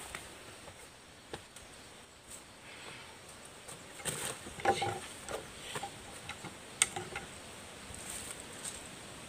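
Footsteps scuffing on rock and dry leaves, and a bundle of wooden sticks knocking together, as a man clambers down a rock face and sets the sticks down. The busiest knocking comes about four to five seconds in, with a single sharp click near seven seconds.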